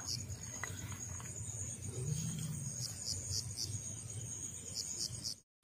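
Crickets chirping: a steady high trill with runs of short, evenly spaced chirps over it, above a faint low hum. The sound drops out briefly just before the end.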